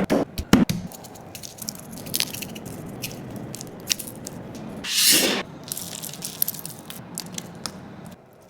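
Food being handled and cooked: a few sharp taps at first, then a steady crackling hiss with scattered ticks, and one louder half-second spray-like hiss about five seconds in.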